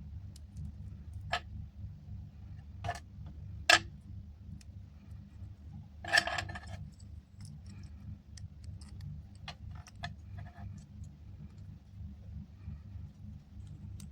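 Small, sharp clicks and taps from handling a tiny AirPod and its parts during repair, a few scattered single clicks and one brief rattling cluster about six seconds in, over a steady low hum.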